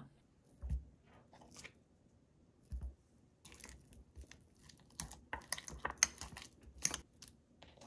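A couple of soft low thumps, then a spoon scooping and mashing avocado for guacamole in a glass bowl: a quick run of short wet scrapes and taps of the spoon against the glass through the second half.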